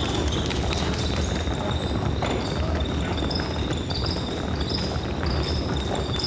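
Quick, busy footsteps of several players running an agility-ladder footwork drill in sneakers on a wooden gym floor, many small taps and knocks. Basketballs bounce in the hall behind them.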